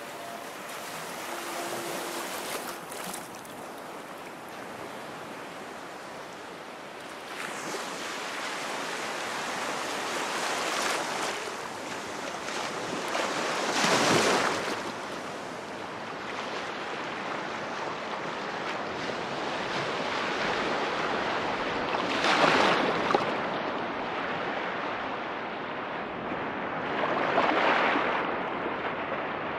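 Ocean waves washing in, a steady surf rush with three louder breakers that swell and fade, about halfway through, then later twice near the end.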